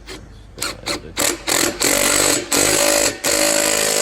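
Impact gun tightening the nuts on the exhaust clamps. It starts with a few short bursts and runs in longer stretches of about a second from around two seconds in.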